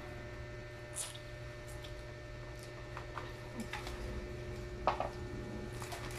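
Wet eating sounds of children chewing and sucking on chicken feet: scattered smacks and small clicks, the loudest about five seconds in, over a steady low hum.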